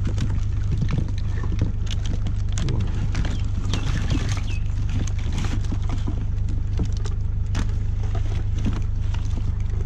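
Hands rummaging through a pile of junked electronics and cords: scattered rustles, clicks and knocks of plastic and cables being moved, over a steady low rumble.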